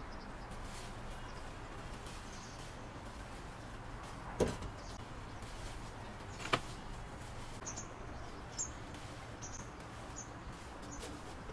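Quiet outdoor ambience with a steady low hum, two sharp clicks about two seconds apart midway, and short high chirps of a small bird in the second half.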